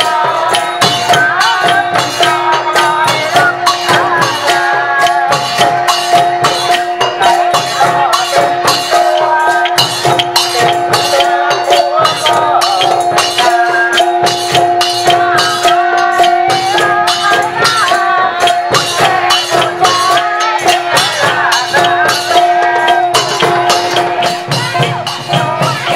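Loud, lively music: a continuous held drone note under a wavering melody, over fast, steady shaker-like percussion strikes.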